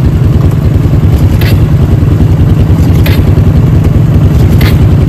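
ATV engine running steadily close by, a loud low pulsing throughout, with three short sharper noises about a second and a half apart.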